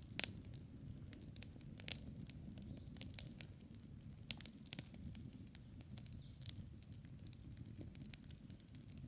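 Wood campfire crackling, with irregular sharp pops, the loudest just after the start and at about two seconds, over a low steady rush.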